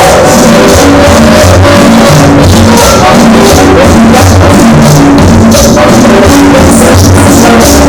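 Very loud music over a sound system, with a steady bass line and shaker and drum percussion; so loud it sits at the limit of the recording.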